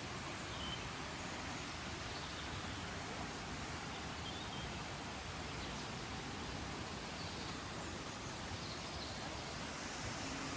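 Steady outdoor rushing noise with a few faint, short high chirps scattered through it.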